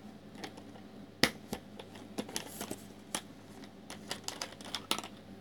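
Scattered, irregular clicks and taps from a bottle of liquid booster being opened and handled by hand, the sharpest click about a second in.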